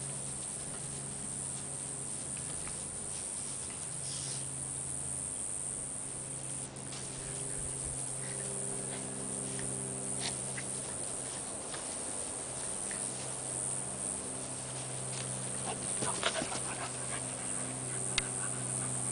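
A rat terrier and a pit bull play-fighting: dog panting and scuffling in the grass under a steady low hum, with a cluster of sharper sounds about 16 seconds in and a sharp tick about 18 seconds in.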